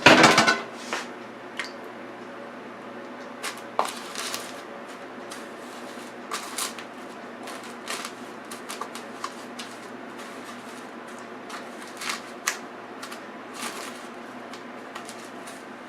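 A chicken drumstick being rolled and pressed into a bowl of breadcrumbs by hand: a loud clatter at the start, then scattered short crackles and rustles of the crumbs.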